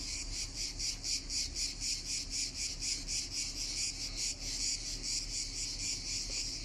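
Cicadas buzzing in chorus: a loud, high-pitched rasp that pulses rapidly and evenly, several beats a second, without a break.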